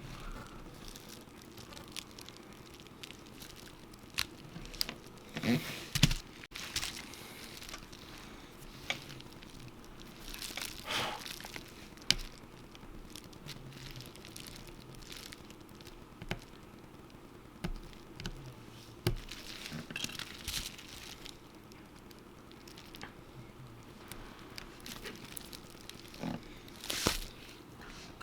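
Scattered small clicks, taps and brief scrapes of tools and parts being handled in iPhone screen-repair work, with a few short rustles.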